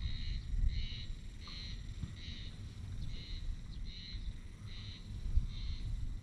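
Insect chirping in an even rhythm, a little more than one chirp a second, over a low rumble.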